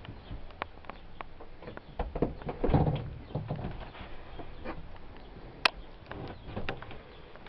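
Irregular knocks, creaks and clicks of someone moving about inside a caravan with a handheld camera, with a heavier thud about three seconds in and a single sharp click near six seconds.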